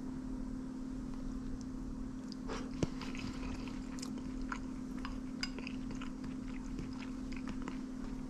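A steady low hum, with a scattering of small clicks and taps starting about two and a half seconds in and dying away near the end.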